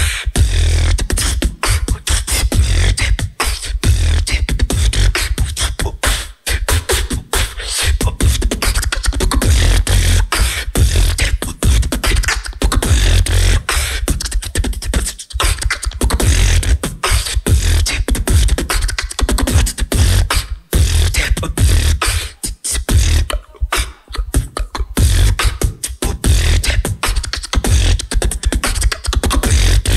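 Solo competition beatboxing: one performer's mouth-made drum patterns, with fast percussive hits over a deep, sustained bass line. It breaks off for a split second a few times, around the middle and again a little later.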